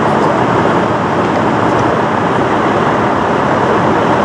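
Steady vehicle engine and road traffic noise: an even, unbroken rumble.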